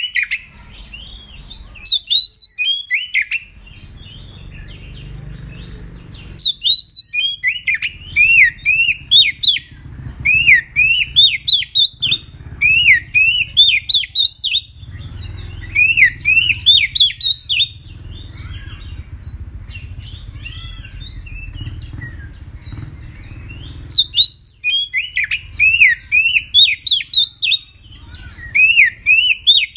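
Oriental magpie-robin singing in loud bouts of quick, sweet whistled notes that slur up and down, several phrases strung together with short pauses of a few seconds between bouts. A fierce, fired-up song of the kind kept as a lure to set other magpie-robins singing.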